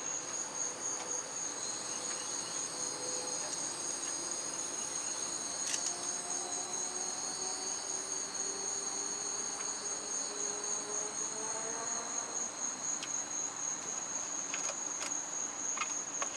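Crickets chirping in a steady, rapidly pulsing high trill, with a few faint clicks.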